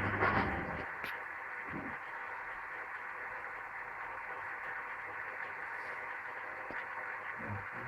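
Bendix 7147A washing machine running: a low hum and machine noise cut out about a second in, leaving a steady, even hiss.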